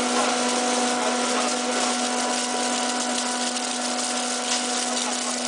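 Flake ice machine running: its drive gives a steady hum under a constant hiss as the rotating scraper shears flakes of ice off the evaporator drum.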